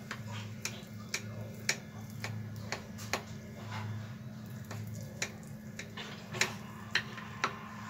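Knife blade tapping and clicking against the bottom of a glass baking dish while cutting soft carrot barfi into squares: sharp, irregularly spaced ticks, one or two a second, over a low steady hum.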